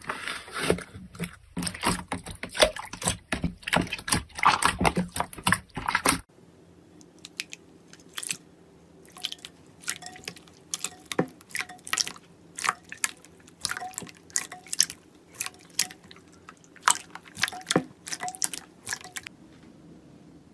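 Slime being squished and pressed by hand: dense, crackling wet clicks, then after a cut about six seconds in, sparser separate sticky pops and clicks.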